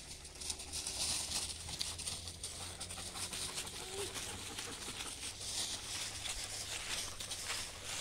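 Dry fallen leaves crunching and rustling under footsteps and the paws of running dogs, a dense run of small crackles.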